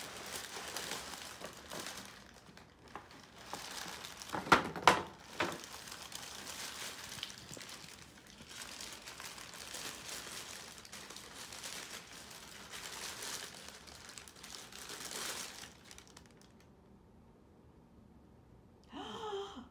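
Tissue paper and a paper gift bag crinkling and rustling as a present is unwrapped by hand, with a few sharper, louder crackles about four to five seconds in. The rustling stops about three seconds before the end.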